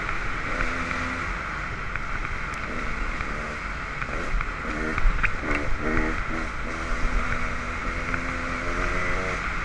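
Dirt bike engine running along a trail, its revs rising and falling repeatedly as the throttle is worked and gears change.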